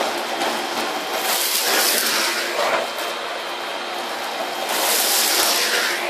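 Miele Complete C2 Powerline 1600-watt canister vacuum cleaner running on its rug setting, one of its lower power settings, with the floor head pushed over a rug sucking up grit and bits of paper. It is quite loud, a steady rushing hiss that swells louder twice, about a second in and again near the end.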